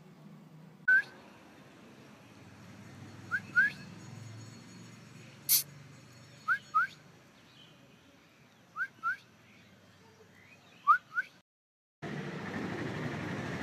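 Short rising whistles: one, then four pairs about two seconds apart, over a quiet background. A single sharp click falls about halfway through, and a steady rushing noise takes over near the end.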